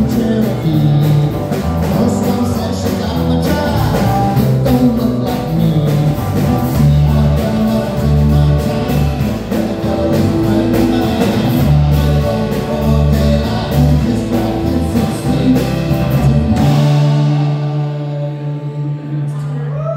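Live rock band playing: electric bass, drum kit and guitars with a man singing. Near the end the drums stop and the band holds a final chord that rings out, closing the song.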